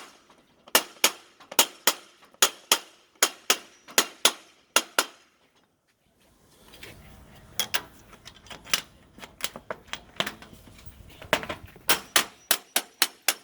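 Hammer tapping vertical glazing profiles into a window frame to lock the glass pane in place: a long run of sharp, light taps, about two or three a second. A short pause comes near the middle, and the taps come quicker near the end.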